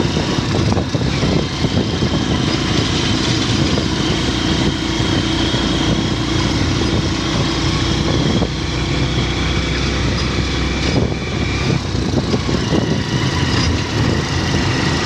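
Steady mechanical drone, like an engine or motor running, under a constant noisy hiss that does not let up.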